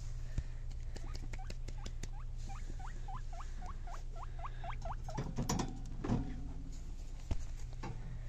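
Guinea pig squeaking: a quick run of about a dozen short rising squeaks, roughly four a second. A louder burst of rustling and knocks follows, all over a steady low hum.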